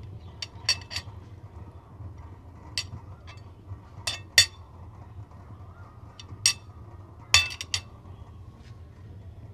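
Metal fork and spoon clinking against a ceramic plate: sharp, short clinks in small groups of one to three, the loudest about four and a half seconds in.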